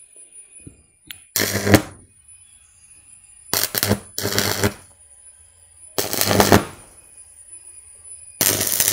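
Welding rod striking and holding an arc on a metal square tube, powered straight from 230 V mains through a bucket of salt water: five short bursts of crackling arc with a low mains buzz under them. The electrode is only shallowly dipped in the salt water, which lets about 80 to 100 amps through.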